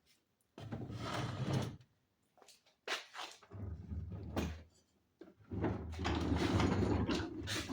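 Homemade wood-and-metal tool cart being moved and handled, giving several bursts of rumbling and scraping of a few seconds each, the longest starting about halfway through.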